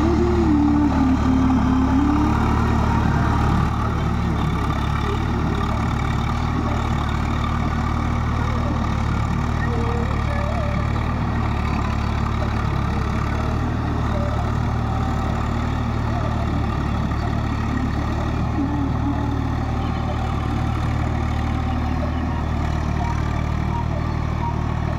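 Swaraj tractor's diesel engine running steadily under load as it pulls a rotary tiller through a flooded paddy field, dropping slightly in level about four seconds in.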